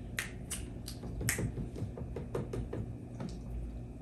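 Peanut shells being cracked open by hand: a quick, irregular run of sharp cracks and clicks, about a dozen in a few seconds.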